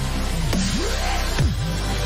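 Electronic dubstep music with a heavy bass line whose pitch sweeps up and down.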